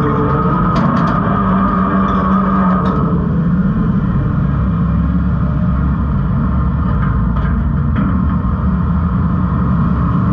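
New Way Rotopac garbage truck running its rotating drum and auger to draw trash in from the hopper, with the body heavily loaded: a loud, steady engine and hydraulic drone whose pitch shifts about three seconds in. A few short crunches and knocks of trash shifting are heard over it.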